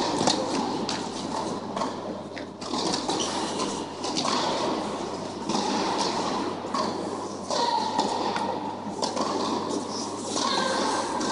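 Echoing indoor tennis-hall ambience: a steady low hum under a busy wash of reverberant noise, with a few sharp knocks of tennis balls being struck.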